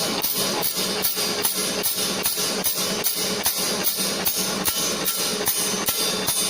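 Circular saw blade grinder running its automatic cycle: a steady grinding hiss with a regular clacking stroke about three times a second as the machine works tooth by tooth.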